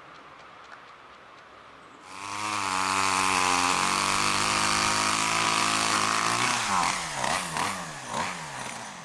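Chainsaw coming in about two seconds in and revving up to a steady high-speed run, then its revs dropping and rising several times near the end, as a felled birch trunk is limbed.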